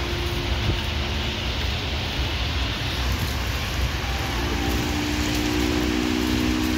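Steady rain falling on the platform and track. About four seconds in, the approaching WAP-7 electric locomotive's horn starts a long, steady multi-tone blast.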